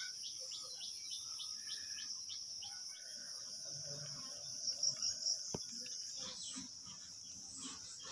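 A steady, high-pitched insect chorus, like crickets or cicadas, runs throughout. Faint, scattered bird chirps sound over it.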